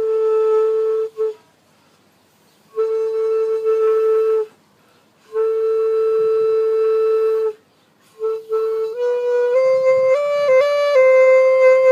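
Xaphoon, a pocket mini saxophone with a single reed, blown in three long notes on the same pitch with short silences between, held steady while a finger presses the upper lip to seal the embouchure. Two short notes follow, and near the end a few notes of changing, slightly higher pitch.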